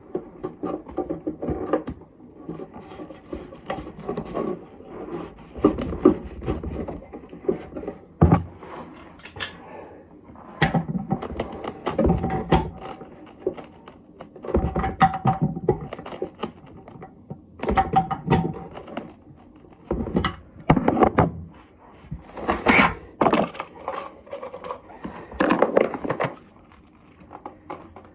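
Irregular thunks, knocks and clicks of plastic cistern parts being handled and fitted into a toilet cistern: a new siphon and fill valve going in.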